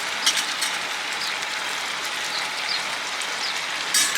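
Steady sizzling hiss of food frying in a pan, with a few short high chirps and a sharp click near the end.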